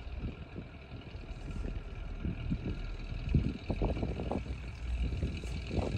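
Low, uneven rumble of wind buffeting the microphone over the steady hum of a boat engine.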